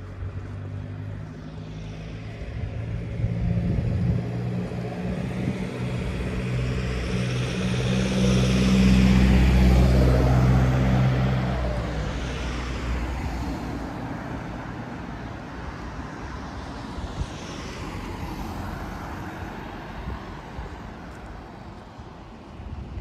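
A minibus drives past close by, its engine hum and tyre noise swelling to a peak about nine seconds in; the engine tone drops away suddenly before twelve seconds and the tyre noise fades as it pulls off. A fainter vehicle passes later on.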